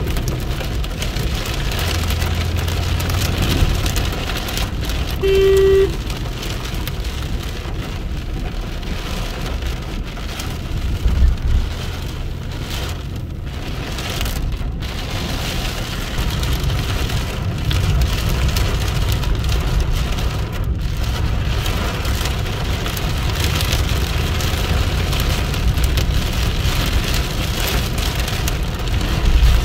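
Heavy rain pouring down in a steady hiss, with low rumbles coming and going underneath. A short single-pitched beep sounds about five seconds in.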